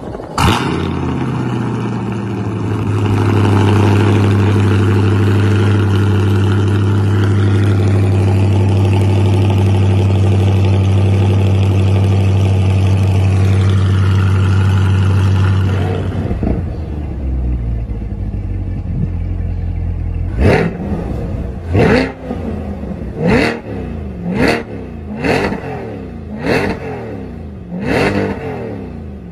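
Chevrolet C8 Corvette's 6.2-litre LT2 V8 firing up with a sharp flare and settling into a steady idle. Later a second C8 is revved in about eight quick blips, each rising and falling in pitch.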